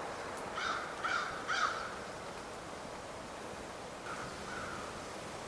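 A crow cawing: three harsh caws in quick succession, then two fainter caws near the end.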